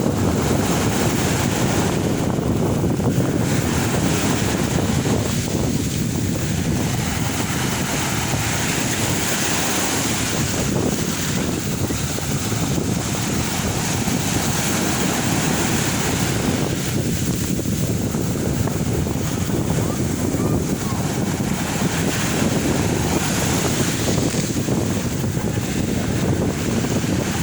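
Sea waves washing onto the shore in a steady, continuous wash that swells and eases, with wind buffeting the microphone.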